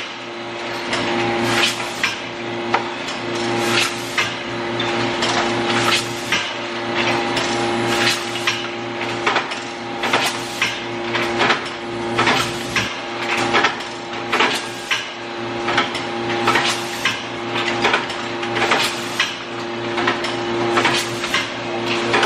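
Automatic bagging machine for antler dog chews running with a steady hum, over frequent irregular clacks and knocks of hard antler pieces being handled and dropped into the bags.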